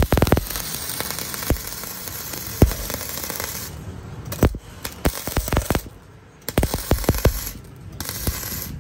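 MIG welding arc from a Bossweld 185 welder, a steady crackle with frequent sharp pops as the wire feeds into the weld. The arc briefly breaks off about six seconds in, then strikes again.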